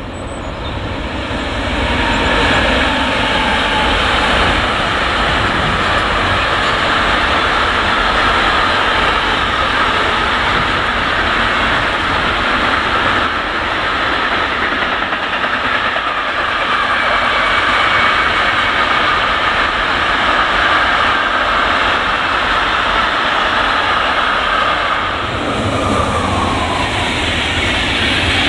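Long container freight train hauled by an electric locomotive passing at speed: a steady loud rumble of wheels on rail with faint ringing squeal. About 25 seconds in the sound changes as an Intercity passenger train passes on another track.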